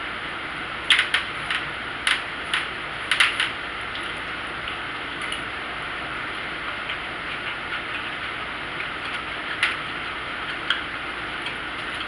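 Eating sounds: a run of sharp clicks and taps, most of them in the first few seconds and a couple more near the end, over a steady hiss.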